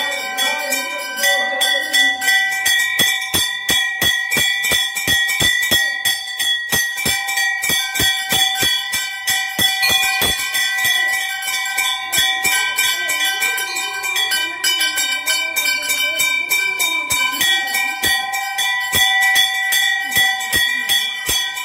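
Temple bells rung rapidly and without pause during a lamp offering (aarti), several strokes a second over steady, overlapping ringing tones.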